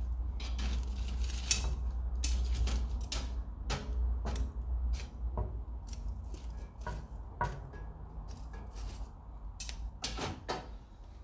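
Metal tool scraping and clinking against the fireplace grate and embers as the fire is stirred up, in irregular strokes over a low rumble that fades about halfway through.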